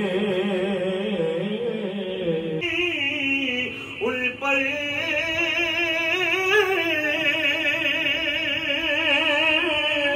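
A man singing a naat solo into a microphone, in long held notes with a heavy waver. The singing breaks briefly about four seconds in, then slides upward into the next line.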